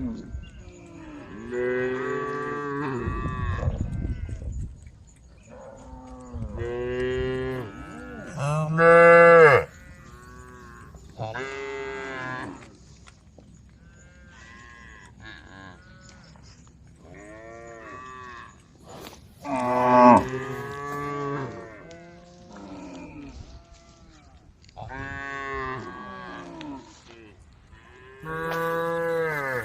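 Cows mooing, about nine or ten long calls one after another every few seconds, from several animals at different pitches. The loudest calls come about nine and twenty seconds in.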